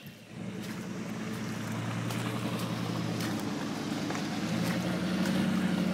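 Engine of an off-road 4x4 pickup running as it works through deep mud, a steady low hum that grows gradually louder.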